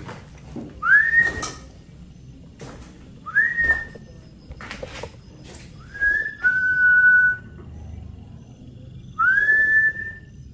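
A man whistling four short calls a few seconds apart, each sliding up and then held on one note; the third breaks into two notes, the second a little lower and held longer.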